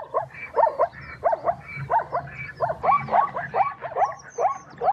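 Spotted hyena calling: a quick run of short yelps that rise in pitch, about two or three a second.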